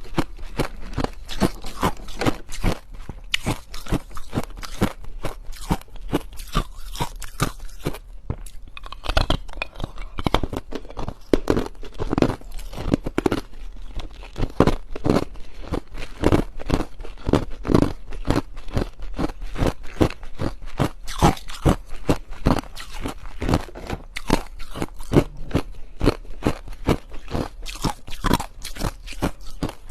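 A person biting and chewing ice, close to the microphone: rapid, continuous crunching and cracking with no pause.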